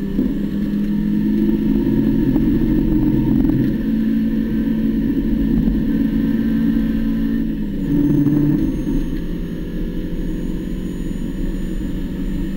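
Spec Miata's four-cylinder race engine, heard inside the cockpit, running hard under full throttle in third gear. About eight seconds in, its pitch drops at the upshift to fourth, then it pulls on.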